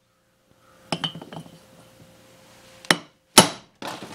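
A hammer strikes a socket and extension three times, once about a second in and twice in quick succession near the end, driving a dropped valve seat back into a Briggs & Stratton Intek cylinder head. The first blow rings briefly with a light metallic rattle.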